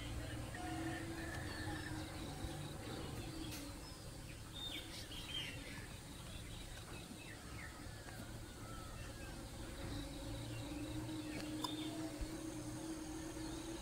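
Rural outdoor ambience: a steady low insect buzz with scattered short bird chirps, the chirps busiest about five seconds in.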